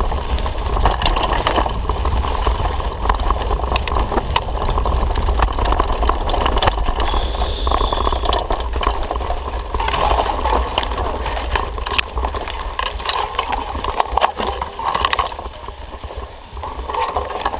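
Mountain bike ridden fast over a rough, rutted dirt trail: a steady low rumble of wind on the microphone, with constant rattling and clicking of the bike and camera mount over the bumps, easing off a little near the end.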